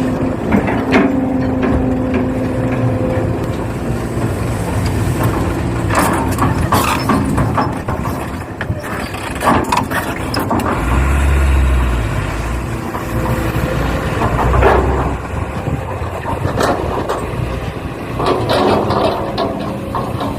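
Radio-controlled excavator and dump truck at work: a steady motor-and-gear hum with scattered short clatters, and two heavier low surges midway through.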